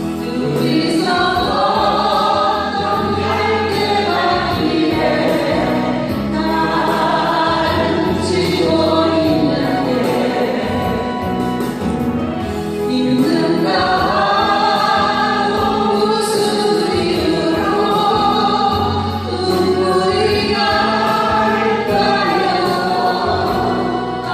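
A group of voices singing a Korean ballad together over an instrumental backing track, phrase after phrase with brief breaths between.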